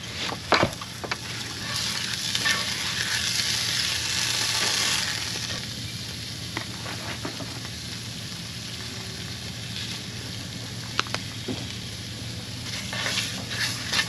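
Meatballs frying, a steady sizzle that is loudest in the first few seconds and then settles, with a few sharp clicks, a couple of them near the end.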